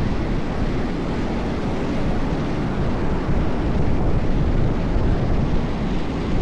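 Wind buffeting the microphone during street skating, a steady rushing noise that is heaviest in the low end.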